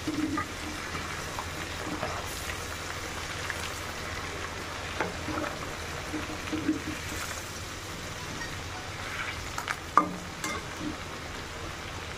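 Fish pieces coated in masala sizzling steadily as they deep-fry in hot oil in a metal kadhai. A perforated metal slotted spoon now and then clicks against the pan, once sharply about ten seconds in.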